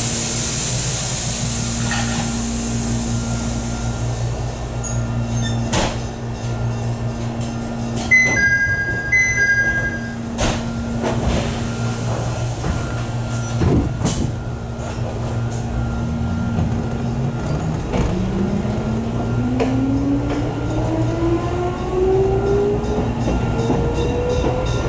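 Jōmō Electric Railway 700 series (ex-Keio 3000 series) electric train standing at a station. A hiss of air at the start, then a steady electrical hum. About eight seconds in a high-low door chime sounds twice, among a few door knocks. From about eighteen seconds the traction motors' whine rises steadily in pitch as the train pulls away.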